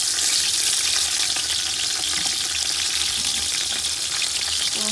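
Chopped onions frying in a hot pan: a steady sizzling hiss as they start to cook.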